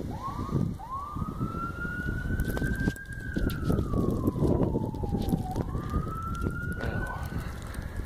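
An emergency-vehicle siren wailing in slow sweeps: it rises and holds high, slides down over a few seconds, then climbs again near the end. Wind buffets the microphone underneath.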